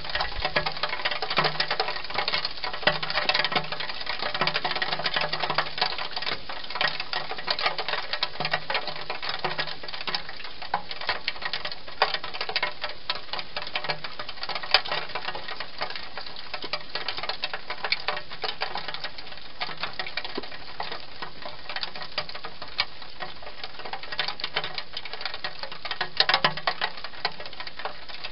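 Wild hedgehog eating from a bowl inside a plastic feeding box: a fast, continuous run of small chewing clicks and crunches.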